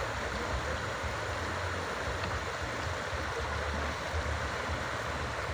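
River water flowing: a steady rushing noise, with a low rumble that comes and goes beneath it.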